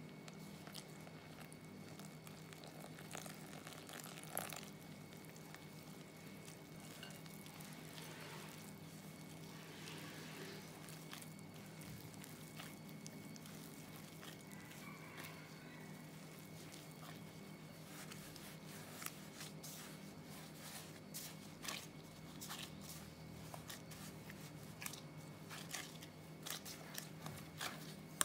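Faint squishing and crinkling of a plastic-gloved hand mixing water into flour and kneading sticky dough in a glass bowl, with small clicks that come more often in the second half. A steady low hum runs underneath.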